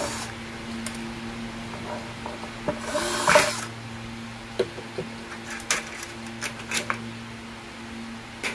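Cordless drill-driver running in a short burst about three seconds in, working the screws of an LED flood light's board. Scattered sharp clicks and knocks follow, over a steady low hum.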